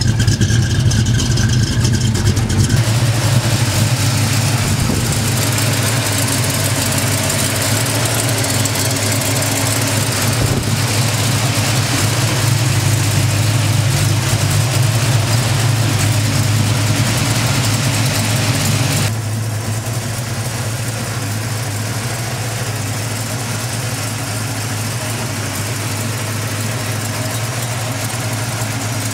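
Ford Mustang engine idling steadily with a low, even exhaust note; the sound gets a little quieter about two-thirds of the way through.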